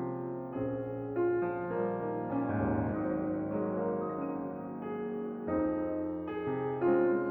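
Solo piano playing a slow, flowing piece: chords and melody notes struck every half second to a second and left to ring under the sustain.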